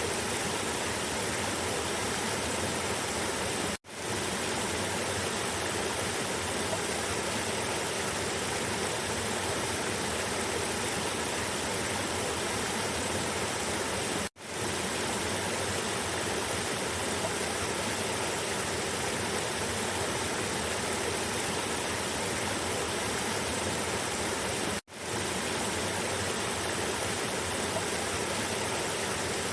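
Cascading river water rushing steadily over rocks. The sound cuts out briefly three times, about ten seconds apart, and comes straight back.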